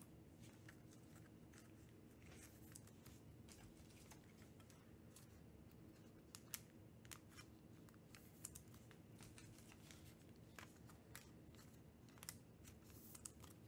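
Near silence, broken by faint scattered clicks and rustles of trading cards being handled, with a few slightly louder ones from about six seconds in and near the end.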